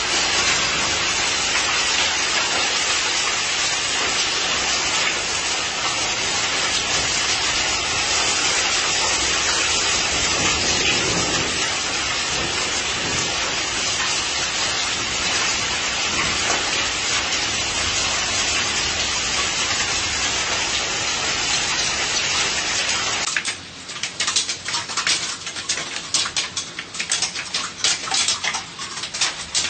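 Heavy hail coming down hard in a dense, steady rush. About 23 seconds in the sound changes to a sparser rattle of many sharp, separate hailstone impacts.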